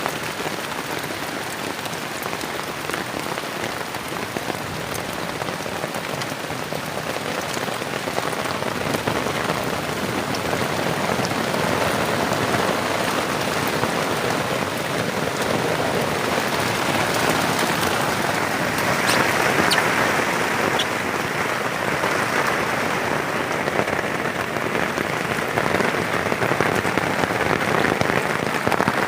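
Heavy rain falling steadily, growing heavier about a third of the way in, with a few sharp drip clicks.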